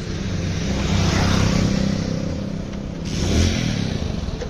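A motor vehicle's engine running and speeding up twice, with road and wind noise swelling about a second in and again around three seconds in.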